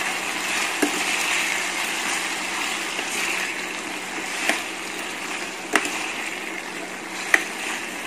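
Diced raw potatoes sizzling in hot ghee in a stainless-steel kadhai as they are stirred, with a steel spoon clinking sharply against the pan four times.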